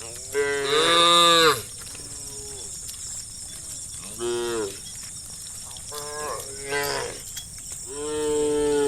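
Cows mooing in turn: four or five long calls, the loudest about a second in and another long one near the end.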